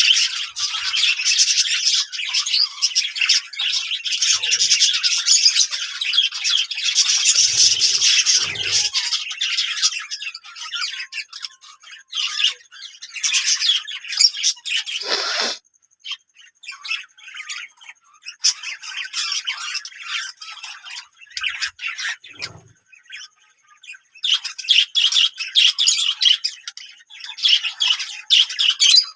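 A group of small Australian parrots chattering and chirping in quick, high notes. The chatter is dense at first, thins out, and builds again near the end, with a brief harsh burst about halfway through.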